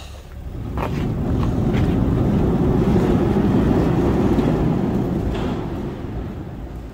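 Metal T-hangar door being opened: a short knock about a second in, then a steady low rumble of the door running on its track that swells and fades away near the end.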